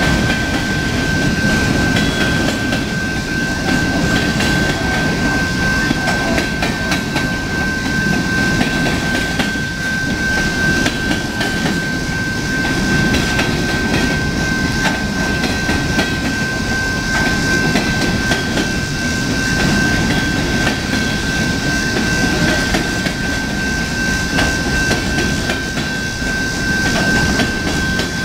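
Coal train hopper cars rolling past: a steady rumble of steel wheels on rail, with rapid clicking and clanking from the wheels. A thin, steady high-pitched whine runs underneath.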